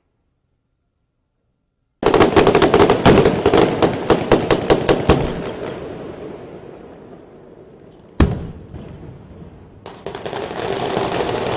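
Film-set pyrotechnic charges going off in a rapid string of sharp bangs for about three seconds, then dying away into a rumble. One more sharp bang follows, and a steady rushing noise comes in near the end.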